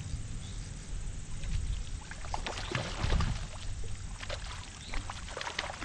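A hooked trout splashing and thrashing at the surface of a pond as it is played on a fly rod, irregular splashes coming thickest from about two seconds in.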